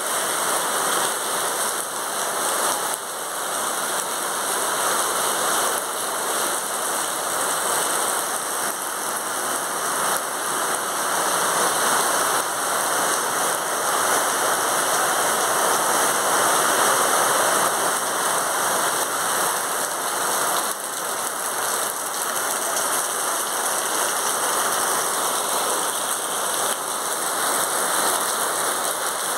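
Steady rain falling on trees, wet paving and roof tiles, a continuous even hiss of drops.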